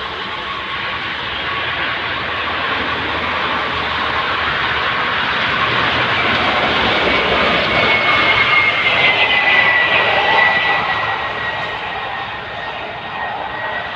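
Intercity coach bus driving past close by, its engine and road noise swelling to the loudest point about ten seconds in and then easing, with a faint high whine sliding slightly lower in pitch over the second half.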